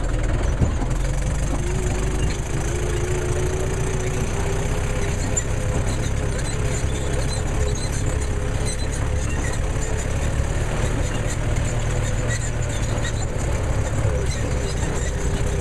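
Tractor engine running steadily as it drives along a very bumpy dirt track, heard from on board, with a steady low engine sound and a faint wavering tone above it.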